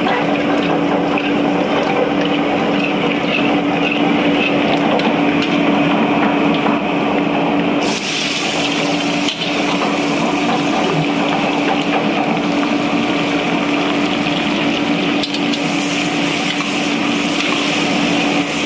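A small electric motor running steadily with a constant hum. About eight seconds in, a brighter hissing noise joins it and keeps on.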